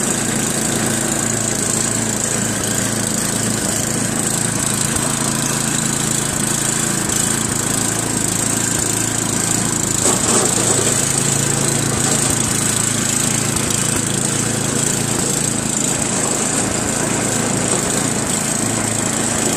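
Craftsman 928 snowblower's 9-horsepower engine running steadily at an even pitch as the machine is moved along.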